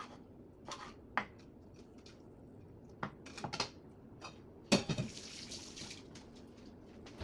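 Kitchen utensils and dishes clinking and knocking now and then, with a louder clatter and thump about five seconds in, followed by about a second of hiss.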